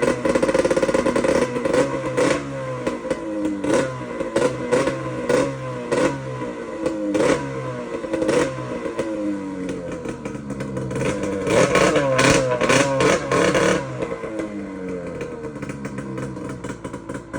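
Arctic Cat M800 snowmobile's 800 cc two-stroke twin running with its muffler off, the throttle blipped again and again so the revs jump and fall back. The revving is loudest about twelve seconds in, then eases to a lower run.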